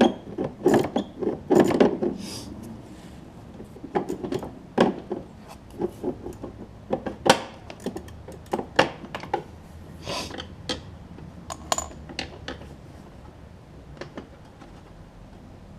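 Socket wrench on an extension working a 7/16-inch nut loose: irregular metallic clicks and knocks of the tool on the nut and mower deck, busiest in the first couple of seconds and sparser after.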